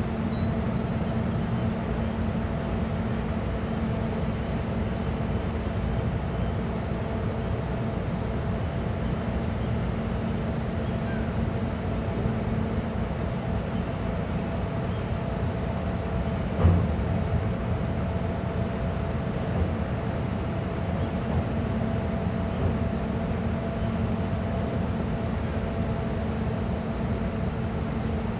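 Steady hum of a moored lake freighter's machinery running, with a few held tones in it. A bird chirps every second or two, and there is a single thump a little past the middle.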